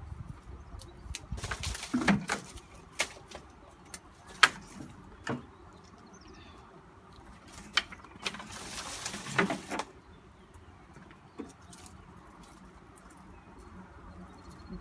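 Scissors snipping through dry aerial roots: a handful of sharp, separate snips. Twice there is a longer burst of rustling as the bundle of roots is handled.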